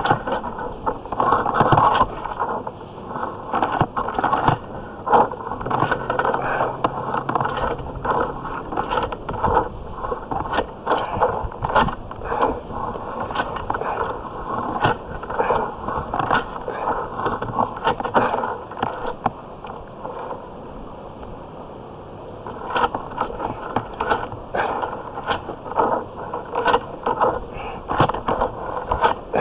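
Sewer inspection camera on its push cable being fed along a heavily corroded cast-iron drain pipe: irregular scraping and clicking as the head and cable rub and knock along the rough pipe wall, with a quieter stretch about two-thirds of the way through.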